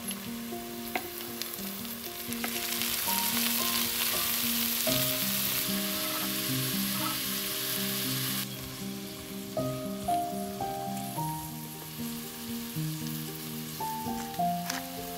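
Diced carrots, celery, bell pepper and onion sizzling in hot oil and butter in a stainless steel pot. The sizzle swells for several seconds and then drops back suddenly. Soft background music with a gentle melody plays throughout.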